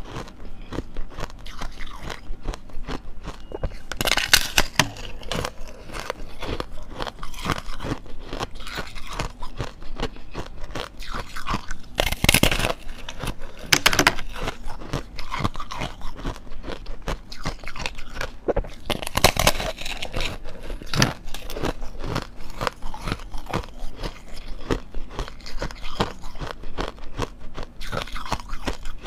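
A person biting and chewing a block of coloured foam ice with a thin hard ice layer: a steady run of small icy crunches, with a few louder bites standing out.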